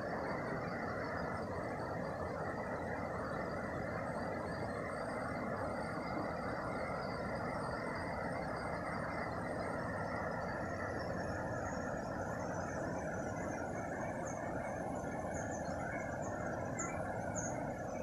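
Steady rushing of a waterfall heard across a gorge, with faint high chirping over it.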